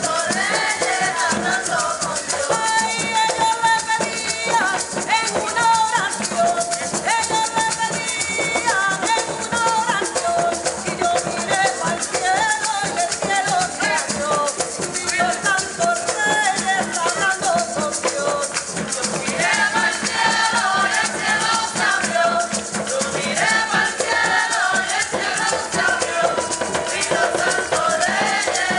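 Live singing of a traditional Puerto Rican Three Kings song: women's voices carry the melody over steadily shaken maracas, with a short break in the singing about two-thirds of the way through.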